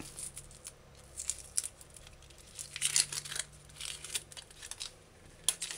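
Dry, papery onion skin crackling and tearing as it is peeled off the onion with a kitchen knife, in several short rustling bursts.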